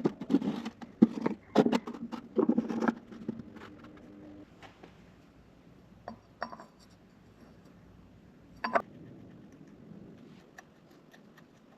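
Metal hand tools and engine parts clinking and clattering during engine assembly: a quick run of clicks and clanks in the first three seconds, then a few scattered clinks and one sharper knock.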